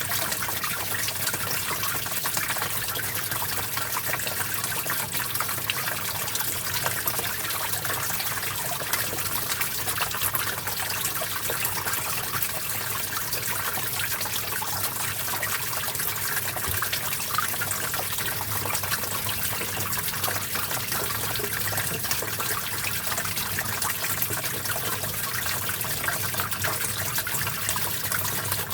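Stream water flowing steadily, a continuous even rush and trickle.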